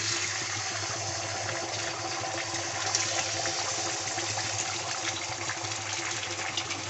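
An egg sizzling as it fries in a little hot oil in a kadai: a steady hiss with scattered crackles and pops.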